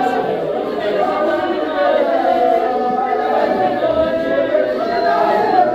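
A group of voices singing together unaccompanied, several sustained lines overlapping.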